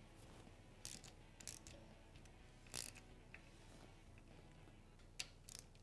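A few short, sharp clicks from hand work fitting the oil pump cover bolts on a KTM LC4 engine case, against near silence.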